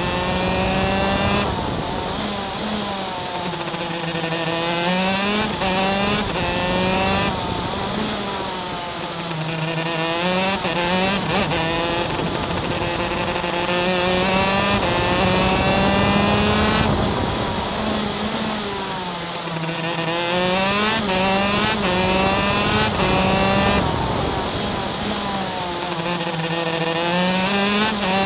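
Racing kart's two-stroke engine heard onboard at full racing pace. Its pitch climbs in steps as it accelerates along the straights and falls away as it slows for the corners, several times over.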